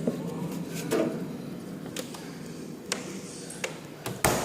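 A handful of light taps and knocks from objects being handled, about one a second, with a louder knock near the end.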